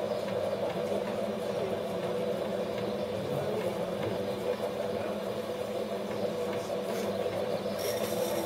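Potter's wheel running with a steady motor hum while a clay vase spins on it.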